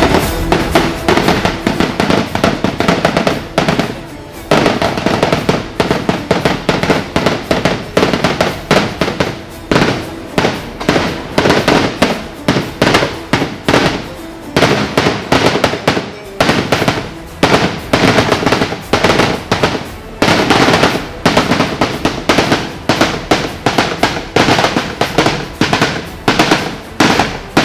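A long chain of firecrackers going off in rapid succession, several sharp bangs a second with brief lulls, as the fire works its way along a line of 1001 crackers.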